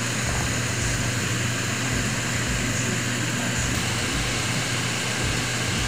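Steady mechanical hum with an even hiss above it, unchanging throughout.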